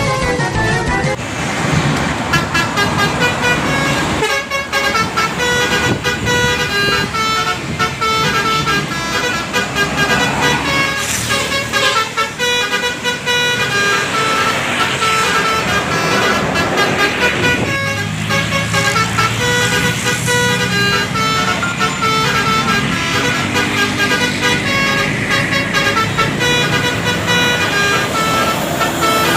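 Indonesian 'telolet' basuri multi-tone bus horns playing quick tunes of short notes, one horn clip after another, over low vehicle rumble.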